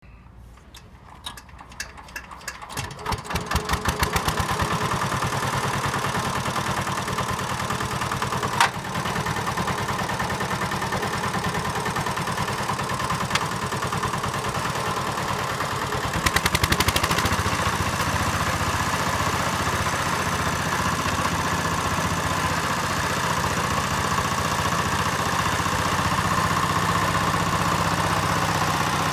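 Engine of a 7 hp Mitsubishi MR800 walk-behind hand tractor starting up: widely spaced firing beats quicken over the first few seconds as it catches and picks up speed, then it runs steadily at idle. There are a couple of sharp clicks partway through and a brief louder spell a little past halfway.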